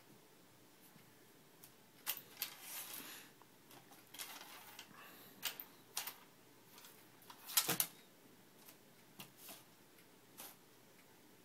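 Small loose items clicking, rattling and sliding across the bottom of an empty desk drawer as a Siamese cat bats at them with its paws, in irregular bursts with the loudest clatter about two-thirds of the way in.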